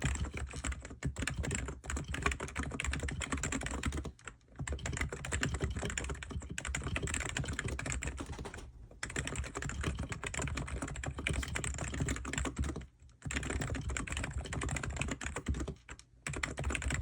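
Fast typing on an ABKO K995P V3 electrostatic capacitive (contactless) keyboard: a dense, continuous patter of keystrokes, broken by brief pauses about four, nine, thirteen and sixteen seconds in.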